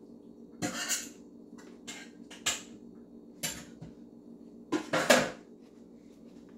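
Dishes and cutlery clattering and scraping in a series of about five short knocks and scrapes, the longest and loudest about five seconds in.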